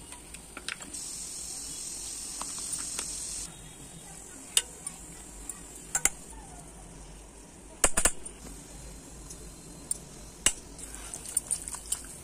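Metal spoon clinking against a steel mixing bowl, a handful of sharp knocks, while raw chicken pieces are stirred with curd and spices. A soft high hiss runs for about two seconds near the start.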